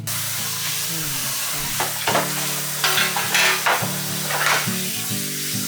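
A steady hiss that starts suddenly, with louder scratchy bursts in the middle, over a soft background pop song.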